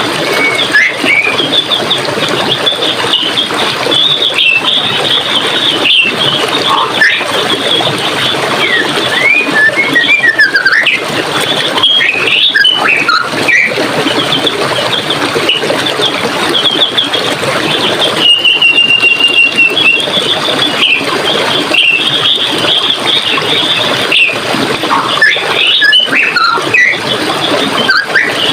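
Running water rushing steadily, with many small birds chirping and twittering high above it; one bird holds a steady trill about two-thirds of the way through.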